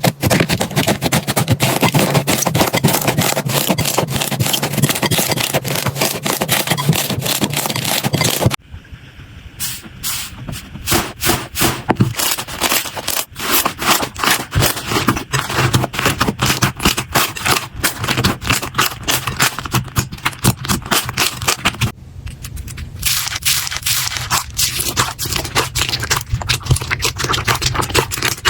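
Slime being squished and worked, making dense crackling and popping clicks. The sound changes abruptly twice, about a third of the way in and near the end, as one clip cuts to the next.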